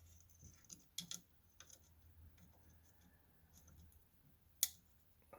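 Faint, scattered small clicks and taps of hand tools and plastic and metal parts being handled during an air filter fitting, with one sharper click near the end. A low steady hum sits underneath.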